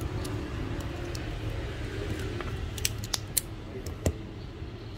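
A few small sharp clicks and taps, about five in the second half, from tools and plastic smartphone parts being handled during reassembly, over a steady low hum.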